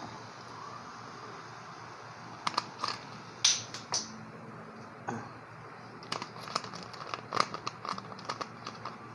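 Scattered crinkles and sharp clicks of a plastic soda bottle being handled and capped, over a steady low background hiss.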